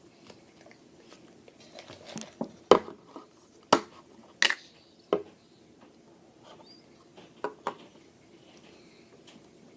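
Slime being handled by hand, giving a series of sharp clicks and pops: four loud ones spread over about two and a half seconds in the middle, then a quick pair later on.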